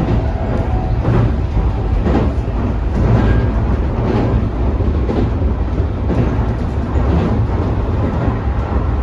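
Toei 5500 series electric train running at speed: a steady low rumble of wheels on rail, with a faint repeating knock about once a second.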